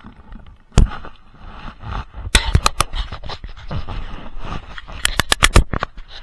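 Loud, sharp metallic knocks and clanks from tools being handled: one hard hit about a second in, then two quick runs of several hits in a row, about ten a second, near the middle and near the end.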